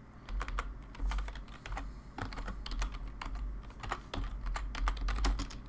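Typing on a computer keyboard: quick, irregular key clicks in short runs with brief pauses, over a low steady hum.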